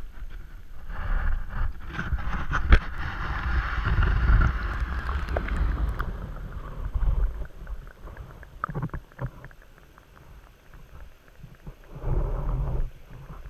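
Water splashing and bubbling around a camera as it goes under the sea surface. Then muffled underwater knocks and rumble, with a louder rumble burst near the end.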